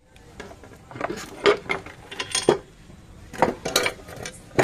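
Metal engine parts and tools clinking and knocking, irregularly, as a car engine's timing case and covers are handled and taken off.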